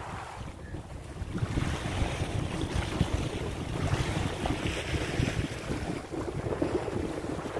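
Wind buffeting the microphone, gusting harder from about a second in, over small sea waves washing against the rocks of a breakwater.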